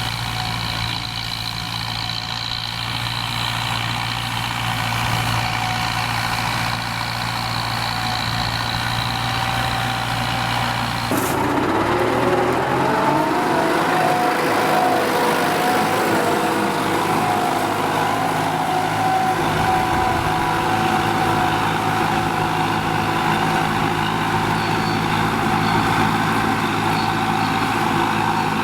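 Diesel tractor engine running steadily. About eleven seconds in the sound changes abruptly; the engine note then climbs as it revs up and holds steady at a higher pitch.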